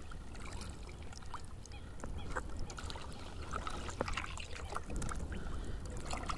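Boat paddle moving through the water with water dripping off it, while birds in the reeds give short, scattered calls.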